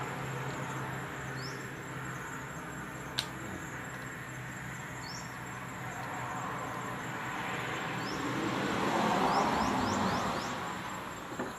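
A vehicle passing, its noise swelling in the second half and then fading, over steady background noise. A single sharp click about three seconds in, and a few short high chirps.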